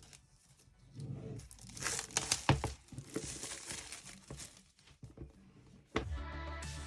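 Packaging on a product box being torn and crinkled during unboxing: a run of tearing and rustling, loudest about two seconds in, with a click at the start and another about six seconds in. Background music comes in near the end.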